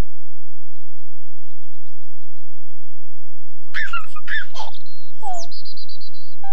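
Faint birdsong, then a baby giggling in short bursts about four seconds in, followed by a brief high warbling tone.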